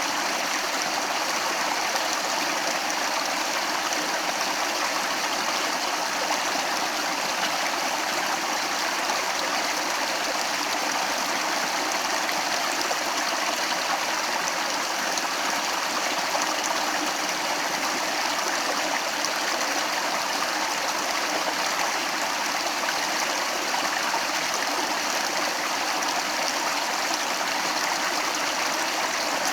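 Flowing stream: a steady, even rush of running water with no breaks or changes.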